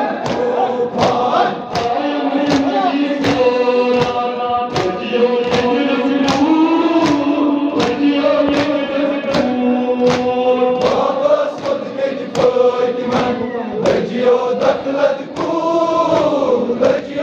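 A group of men chanting a Kashmiri noha (Shia lament) together, with sharp rhythmic chest-beating (matam) about twice a second.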